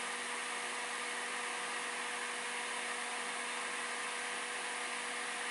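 Steady faint hum over a constant hiss, with no distinct event.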